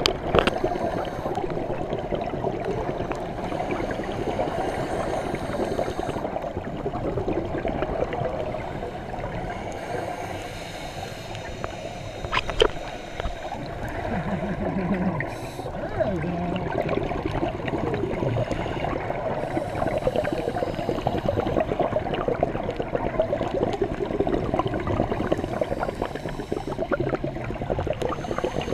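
Scuba divers' regulator breathing heard underwater: continuous gurgling and rumbling of exhaled bubbles, with a higher hiss that comes and goes every few seconds. A single sharp tap about twelve seconds in.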